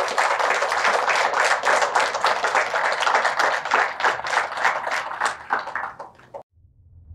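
Audience applauding, a dense patter of many hands clapping that cuts off abruptly near the end.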